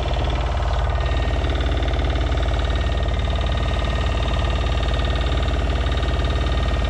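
A boat's engine running steadily with a fast, even pulse.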